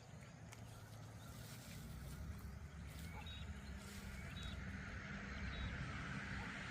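An engine drawing nearer: a low hum and a rush grow steadily louder. A bird gives a few short high chirps midway.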